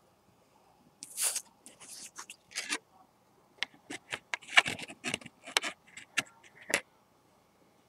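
A Trivial Pursuit question card being handled and turned over against the cardboard game box: a string of short scrapes and rustles, then quicker sharp clicks and ticks of card on card.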